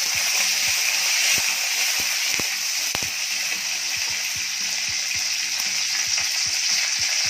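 Curry leaves and crushed garlic sizzling steadily in hot coconut oil in a steel kadai, with many short sharp pops and clicks as a slotted steel spoon stirs them.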